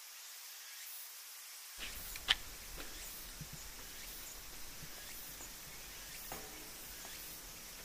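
Faint outdoor ambience: a steady hiss, joined about two seconds in by a low rumble. A sharp click comes just after, then a few fainter ticks.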